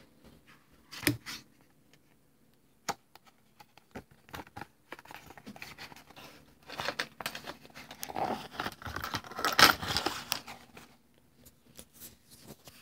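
Glossy pages of a comic book being handled and turned, paper rustling and crinkling, with a sharp knock about a second in and the busiest rustling in the second half.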